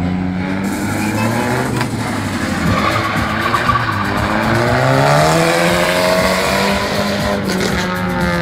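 Car engines revving up and down, with tyre squeal from stunt cars manoeuvring.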